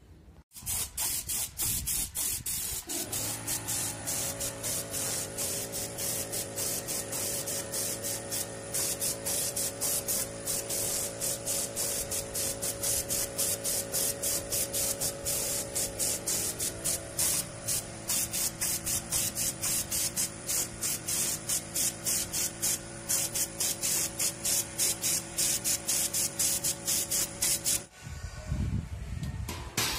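Spray gun hissing as it sprays primer onto a steel gate, pulsing about three times a second over a steady motor hum; it stops shortly before the end.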